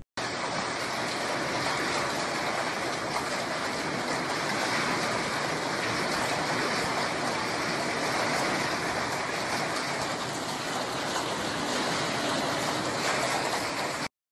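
Hailstorm with strong wind: a loud, steady rushing roar of hail and rain driven against the ground and buildings, cutting off suddenly near the end.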